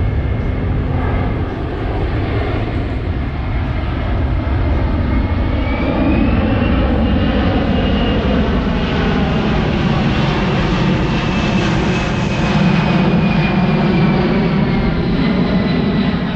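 Fixed-wing aircraft engines running loud and steady: a dense rumble under a high whine that rises about six seconds in and then slowly falls.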